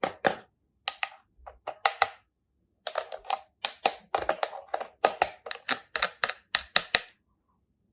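Quick, irregular sharp clicks and crackles of toy packaging and small toy pieces being handled, coming thick and fast through the middle stretch.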